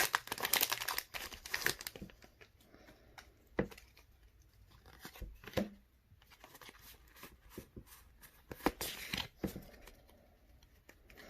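Foil booster-pack wrapper of Pokémon trading cards being torn open and crinkled, loudest in the first two seconds. Then come soft clicks and rustles, with another short crinkle about nine seconds in.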